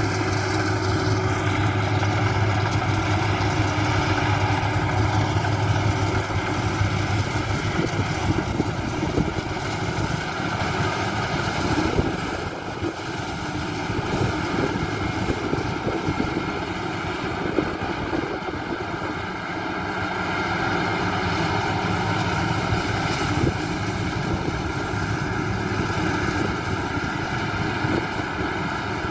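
Maxxi Bimo 102 rice combine harvester running steadily as it harvests paddy, a continuous engine and machinery drone with a steady hum.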